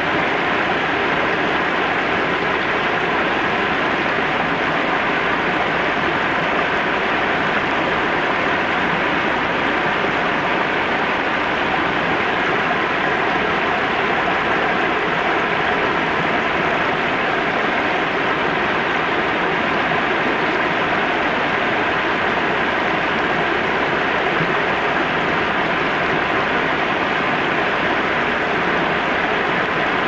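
River water spilling over a low weir and running through shallows over stones, a steady, unchanging rush of water.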